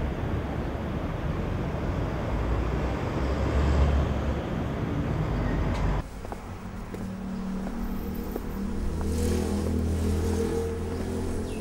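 Road traffic noise, a steady dense rush with low rumble, that cuts off abruptly about six seconds in. It is replaced by a quieter low hum with several steady tones.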